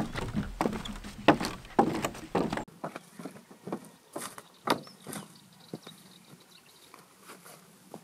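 Footsteps of two people walking, then going down the wooden steps of a footbridge: separate knocks at an uneven pace, about two a second.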